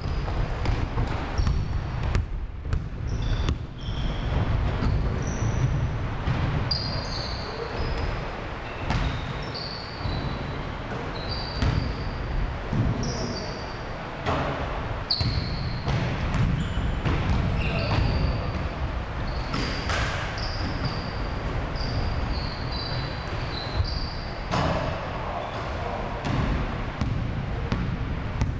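Basketball being dribbled and bounced on a hardwood gym floor during a pickup game, with players' sneakers squeaking in many short high chirps as they cut and stop. The thuds and squeaks echo in the large hall.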